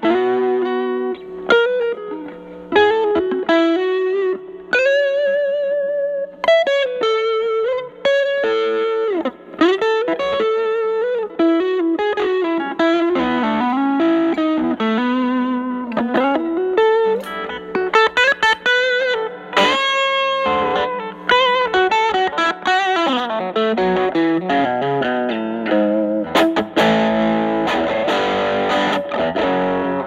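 Telecaster played through an Ibanez Tube Screamer Mini into an overdriven Fender Studio Reverb amp, with its 8-inch Celestion speaker: improvised single-note blues lead lines with vibrato and string bends. The playing turns to thicker, chordal strumming near the end.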